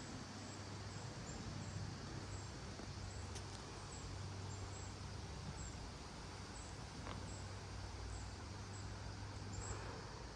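Steady outdoor wind noise with an insect chirping faintly and evenly, about three times every two seconds, over a low steady hum.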